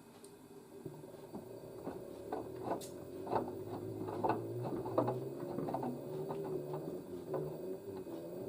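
LG DirectDrive washer drum turning with a load of wet towels, its motor hum building about a second in, with irregular knocks and thuds from the tumbling load as the machine tries to reach its spin; the load is unbalanced, so it keeps failing to get up to speed.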